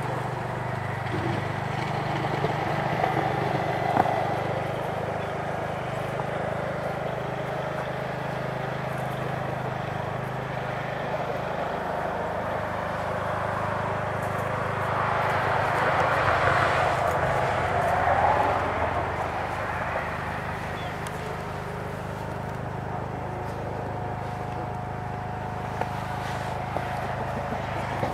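Steady hum of distant road traffic, with one vehicle passing and swelling louder about halfway through, then fading.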